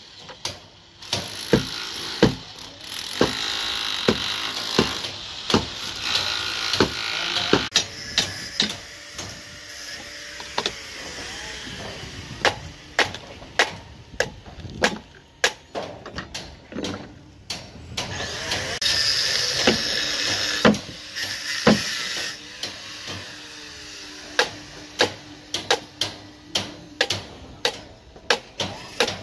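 Hammers knocking on formwork and rebar: many sharp, irregular knocks, often two or three in quick succession, over a background hiss of site noise that swells twice for a few seconds.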